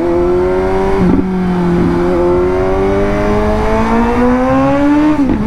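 Suzuki GSX-S750's inline-four engine, fitted with an aftermarket Austin Racing titanium exhaust, pulling under hard acceleration. The engine note climbs steadily for several seconds, with a small step about a second in, then drops sharply near the end.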